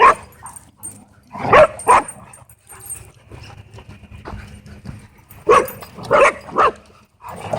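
A dog barking at the dog park: a bark right at the start, two more about a second and a half in, and three more around the sixth second.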